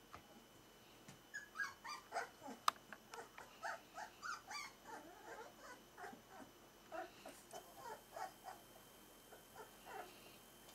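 Four-week-old smooth-faced Pyrenean Shepherd puppies whimpering and squeaking in a rapid string of short, high calls. The calls start a second or so in and thin out near the end, with one sharp click among them.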